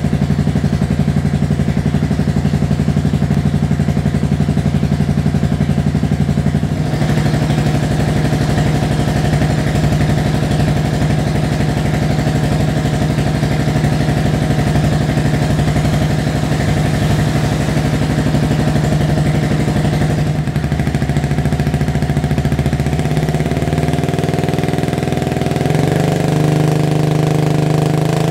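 Yamaha YZF R125's single-cylinder four-stroke engine idling steadily through a Turbo Kit carbon GP aftermarket exhaust, with small shifts in its note about seven and twenty seconds in and a slightly higher, louder note near the end.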